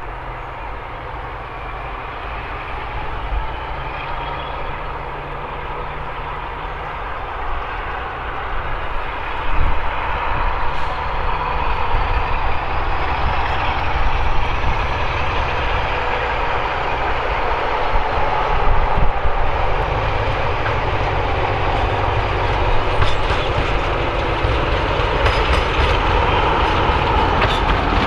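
Class 47 diesel-electric locomotive 47712, its Sulzer twelve-cylinder engine running with a steady drone as it approaches hauling coaches, growing steadily louder until it draws level.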